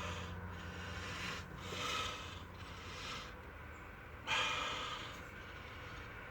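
A man breathing heavily while working, with a few noisy breaths; the strongest, a sharp exhale, comes about four seconds in. A low hum sits underneath in the first two seconds.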